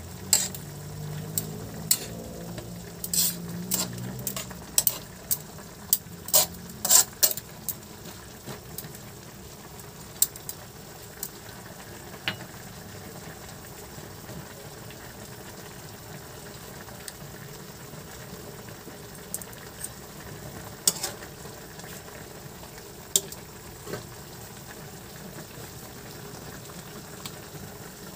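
Metal tongs and a spatula clinking and scraping against a steel wok, many knocks over the first several seconds and only a few after. Under them, pork chops and potatoes simmer steadily in their sauce.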